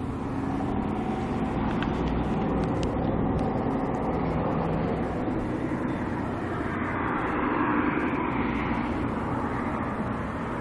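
Small engine of a motorized bicycle idling steadily.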